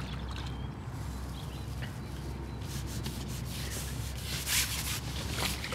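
Wind buffeting the microphone: a steady low rumble, with a few short rustling gusts.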